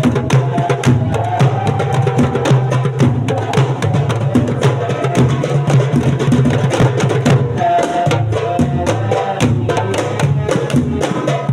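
Marawis ensemble of hand drums playing a fast, dense rhythm: deep strokes on the large bass drum under quick slaps on the small marawis drums and a goblet drum.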